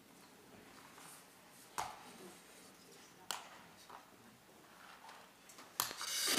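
Quiet hall room tone broken by three short sharp knocks, then music starting to fade in right at the end.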